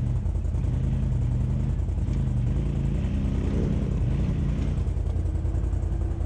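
ATV engines: a nearby quad runs steadily at low revs, while another quad revs up and down as it struggles up a steep snowy trail.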